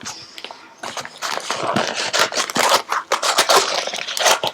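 Retail packaging of a phone case being opened by hand: a quick run of crackles, clicks and rustles, starting about a second in.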